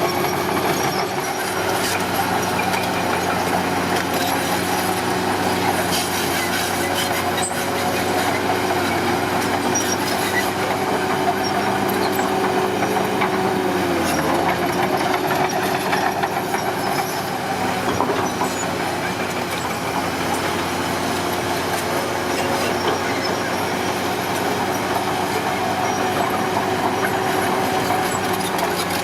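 Heavy construction machine's diesel engine running steadily under a dense metallic clatter. About halfway through, the engine note sags briefly as it takes load, then recovers.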